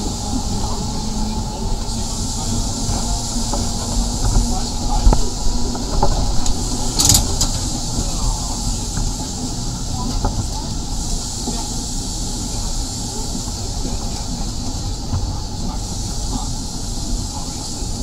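1934 Nesa 929 electric tram running along the track: a steady rumble of wheels on rail with a few louder knocks around four to six seconds in, and a brief sharp hiss about seven seconds in.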